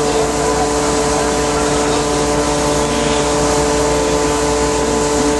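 An engine running at a steady speed, a constant drone with several fixed hum tones and no change in pitch.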